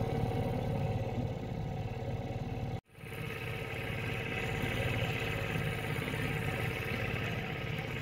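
Small boat's outboard motor running steadily at low speed, with a brief break in the sound about three seconds in.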